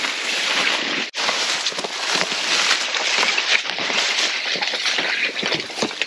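Loud, continuous rustling and swishing of grass and flax leaves brushing against the camera as someone pushes through dense scrub, briefly cut off about a second in.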